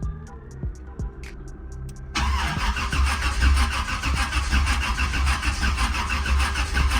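Starter motor cranking a car engine steadily with a rhythmic pulse, starting about two seconds in, without the engine catching. The battery is low and sagging to about 10 volts under the crank.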